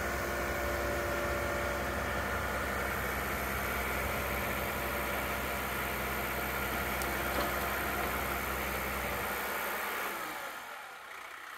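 John Deere compact utility tractor's diesel engine running steadily, fading away near the end.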